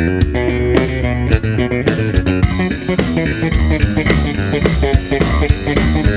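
Electric bass guitar played slap style, strung with DR Pure Blues strings: a fast run of sharp thumb slaps and string pops over ringing low notes.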